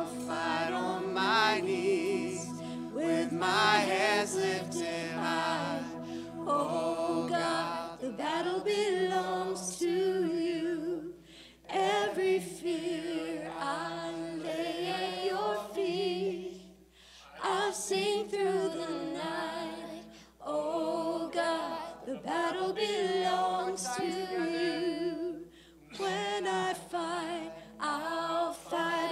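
A congregation and a female worship leader singing a worship chorus together a cappella, in phrases with short breaths between them. A low held instrument note sounds under the singing for the first eight seconds or so, then stops, leaving the voices alone.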